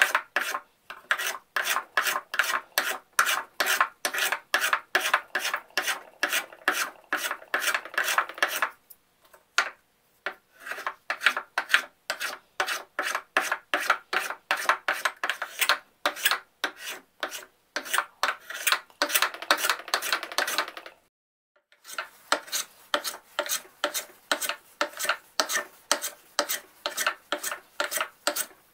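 Hand plane cutting pear wood in quick, short scraping strokes, about three a second, as the faces of an octagonal handle are trued. The strokes stop briefly twice, about a third of the way in and again about three quarters of the way in.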